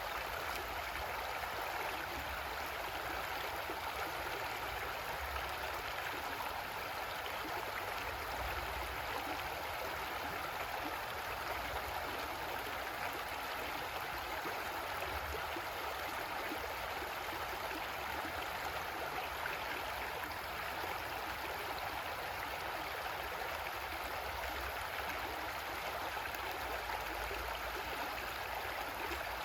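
Creek water flowing steadily over rocks, a constant rushing and gurgling.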